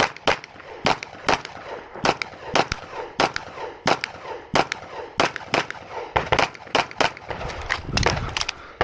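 Semi-automatic pistol with a red-dot sight firing rapidly, dozens of shots mostly in quick pairs, with a short break in the shooting about eight seconds in while the magazine is changed.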